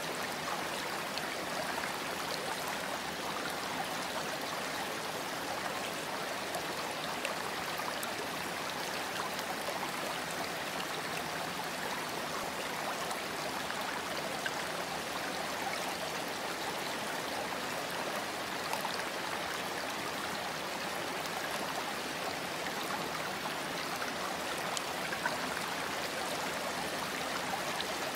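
Steady running-water sound, like a flowing stream, with no breaks or changes.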